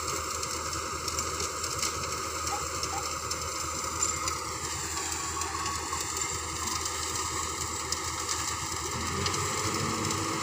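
Kobelco SK200 hydraulic excavator's diesel engine running steadily, its note dipping briefly about halfway through and then recovering.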